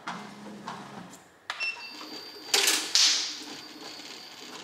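Small curved craft scissors snipping thread tails on a hooped embroidery, with handling of the plastic hoop: a few sharp clicks, then a louder rustle lasting under a second about two and a half seconds in.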